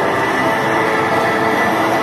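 Steady, loud rumbling noise like a rail vehicle running on its track, with a thin steady high tone over it.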